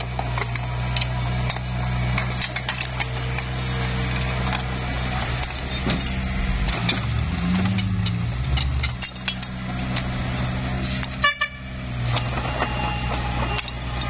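Komatsu D21P small bulldozer's diesel engine running under work, with scattered metallic clicks and clanks. The engine pitch shifts briefly about halfway through, then settles back.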